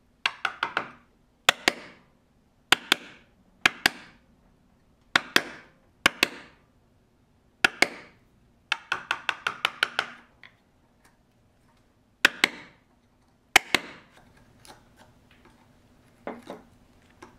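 Wooden mallet striking a chisel to chop waste across the grain of a small mortise in hardwood: sharp knocks in clusters of two to four every second or so, with a faster run of about eight blows around nine seconds in. The last few seconds hold only faint light taps as the chisel is worked by hand.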